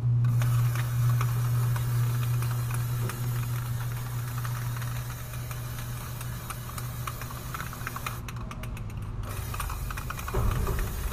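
Aerosol spray-paint can hissing steadily as matte black paint is sprayed onto a car's alloy wheel, with small clicks and a steady low hum beneath. The spray stops for about a second about 8 s in, then starts again.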